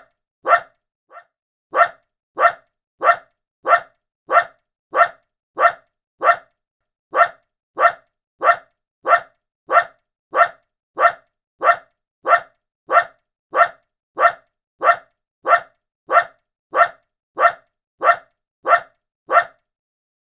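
A small dog's single woof, repeated over and over at an even pace of about one and a half barks a second, with a couple of brief gaps; the barks stop shortly before the end.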